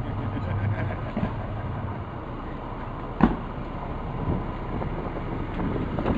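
Steady low rumble of a slowly moving vehicle's engine and road noise, heard from inside the cab. A single sharp knock sounds about three seconds in.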